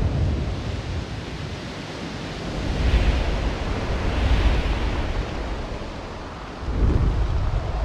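Designed rushing wind with a deep low rumble, swelling twice in the middle and surging again near the end.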